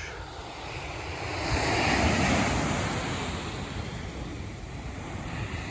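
Pacific Ocean surf breaking on a sandy beach: a wave crashes and washes in, swelling to its loudest about two seconds in and then easing.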